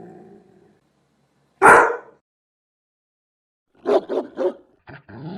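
Dogs barking: one loud single bark about a second and a half in, then after a pause a quick run of four barks, and more barking from another dog near the end.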